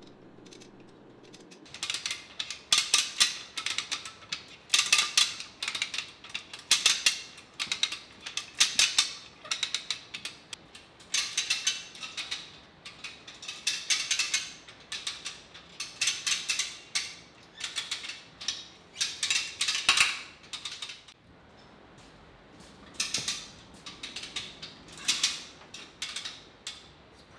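Hand-operated come-along ratchet winch being worked: repeated quick runs of ratchet clicks, about one run a second, with a short pause about three quarters of the way through.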